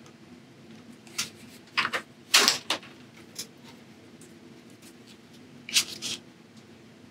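Short knocks and scrapes of painting materials being handled on a tabletop, the loudest a quick cluster about two and a half seconds in. Near the end a brief scuffing as the sheet of gessoed watercolor paper is slid and turned on the table.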